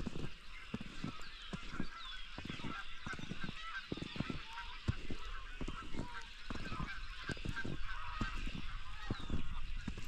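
A lively chorus of many birds calling at once, short overlapping calls and little rising and falling notes. Underneath, irregular soft footsteps in snow, about two a second.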